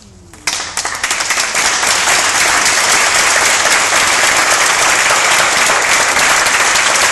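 Audience applauding, breaking out suddenly about half a second in and then holding steady and full.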